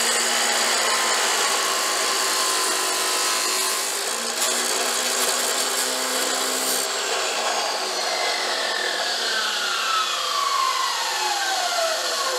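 Chop saw running and cutting through aluminum bracing stock, a loud steady grinding over the motor's hum. About seven seconds in the saw is let off and its motor winds down in a long falling whine.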